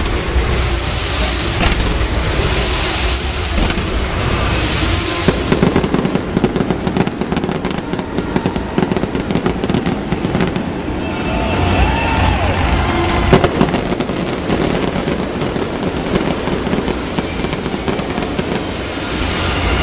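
Fireworks going off in a dense, continuous barrage of rapid crackling and bangs.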